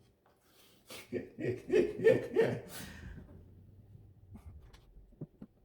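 A man laughing in a few short, breathy bursts, followed by a few faint small clicks and taps.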